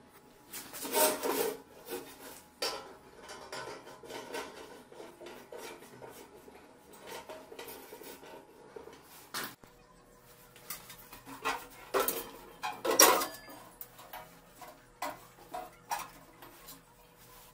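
Sheet-metal stove housing being handled and fitted together: irregular metal clanks and knocks with scraping between them, the loudest about a second in and near two-thirds through.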